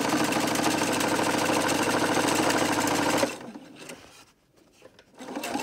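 Domestic sewing machine stitching a hem through cotton fabric at a fast, steady pace, stopping abruptly about three seconds in and starting up again near the end.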